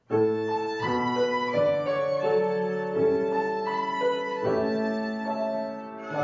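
Two violins playing a melody with piano accompaniment; the music starts abruptly right at the beginning and runs on in sustained notes.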